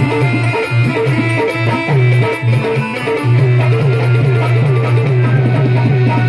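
Instrumental devotional music: drums and a melody instrument over a held low bass note.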